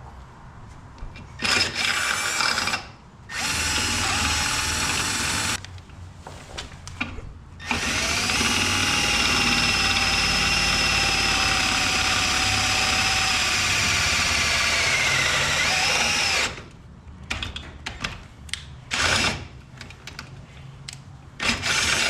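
Power drill boring a hole: two short runs, then one long steady run of about eight seconds whose pitch sags just before it stops, followed by a few brief triggers near the end.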